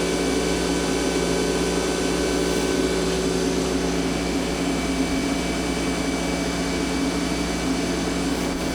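Sub spindle of a 1997 Miyano BNE-46S CNC lathe turning steadily at 3500 RPM: an even machine hum with several steady whine tones, unchanging in pitch.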